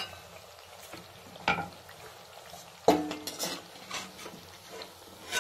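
Steel slotted spoon knocking and scraping against a steel kadai while turning papdi frying in hot oil, over a low sizzle. The loudest knock comes about three seconds in and rings briefly, followed by a run of lighter clicks.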